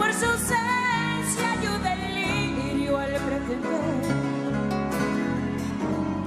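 Live acoustic band playing the instrumental break of a slow ballad: plucked guitar accompaniment under a wavering melodic lead line.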